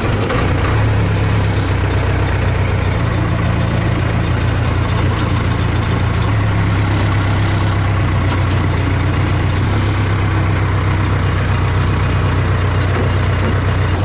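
Case backhoe's diesel engine idling steadily just after being started.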